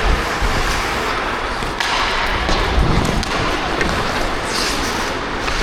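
Ice hockey play: skate blades scraping the ice, with a few sharp knocks of sticks, puck or boards, the clearest about two seconds in.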